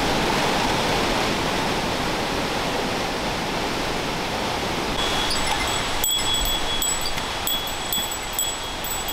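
Waterfall rushing steadily. About five seconds in, a bear bell starts jingling, a high ringing tone renewed by small repeated strikes.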